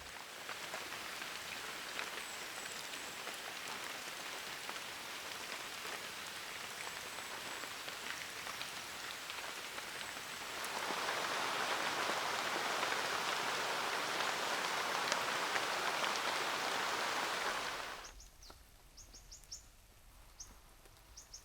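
Rain falling steadily, turning heavier about halfway through, then cutting off suddenly near the end. In the quiet that follows there are faint, short, high chirps.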